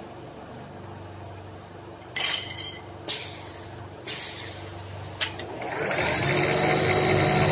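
Wood-turning lathe running with a steady motor hum, its forming cutter biting into the spinning drumstick blank in four short, sharp cuts about a second apart. Near the end a longer cut builds and grows louder.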